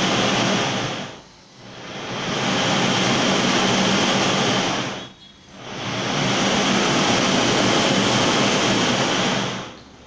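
Four-burner LPG flame gun firing with a loud, even rushing noise, in three long blasts that die away about a second in and about five seconds in, build back up, and cut back near the end.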